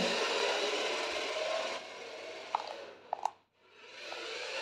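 Remote-control toy Lamborghini Veneno's small electric motor whining, with its tyres running on a laminate floor as it drives off. The sound gets fainter about two seconds in, with three short high tones, and cuts out briefly past the middle before it returns.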